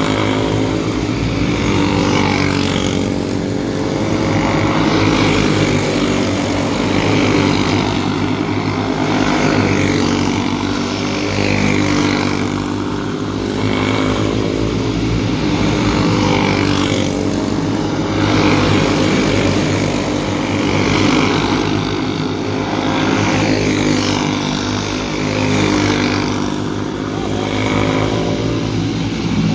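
Several racing go-kart engines running together in a pack, the pitch and loudness rising and easing about every two seconds as the karts throttle up and lift.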